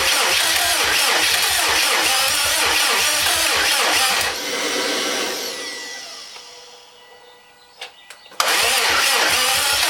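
Starter cranking the 2007 Subaru WRX STi's turbocharged flat-four engine, which turns over in a steady rhythm but does not catch. This is a no-start after an engine rebuild, with fuel reaching the lines. A little over four seconds in the cranking stops and a whine winds down. A few clicks follow, then the cranking starts again near the end.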